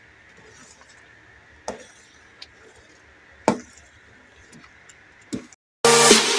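Metal ladle clinking against a stainless-steel cooking pot while the rice porridge is stirred: four sharp clinks, the loudest about three and a half seconds in. Loud electronic music starts abruptly near the end.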